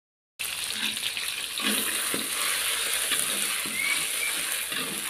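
Ground spice paste sizzling steadily in hot oil in a metal wok, with a metal spatula scraping against the pan as it is stirred. The sizzle starts about half a second in.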